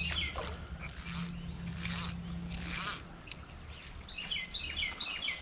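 Fly line swishing through the air in false casts, four swishes in quick succession. A bird then sings a rapid series of short falling chirps near the end.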